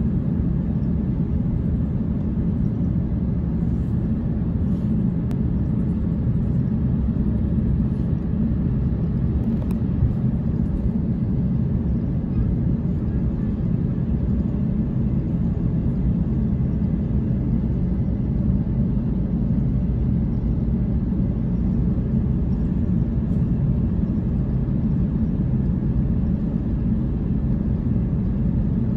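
Steady low rumble inside an Airbus A350 cabin while the jet taxis, with the engines at taxi thrust and the cabin air running.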